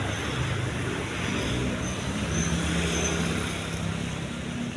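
A motor vehicle engine running, its low hum shifting in pitch, over a steady traffic-like rush.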